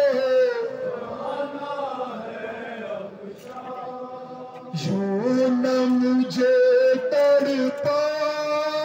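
A man chanting a nouha, a Shia lament for Muharram, in long held notes. The singing softens for a few seconds in the middle and comes back strongly about five seconds in.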